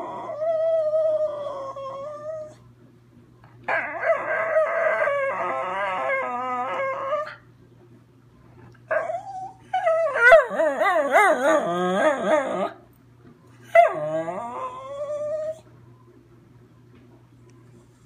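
Schnauzer howling: a run of long, drawn-out howls with wavering pitch, separated by short pauses. The howls stop a couple of seconds before the end.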